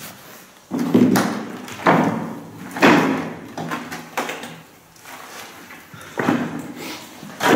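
A series of loud, echoing thuds: three about a second apart, then two more near the end.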